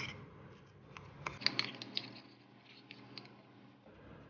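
Sparse light clicks of a spoon against a small ceramic bowl while soft butter is mixed with grated garlic and coriander, with a small cluster of clicks about a second and a half in.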